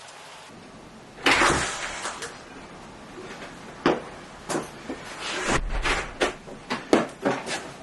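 A steady pouring hiss stops just after the start. It is followed by a run of sharp knocks, clunks and scrapes of a hard plastic container being handled, the loudest about a second in: a dehumidifier's water tank being emptied and put back.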